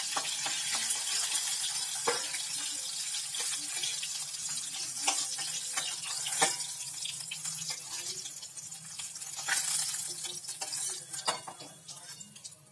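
Bata fish sizzling in hot mustard oil in a kadai, with a metal spatula scraping and knocking against the pan a few times as the fried fish are lifted out. The sizzle thins out near the end as the pan empties.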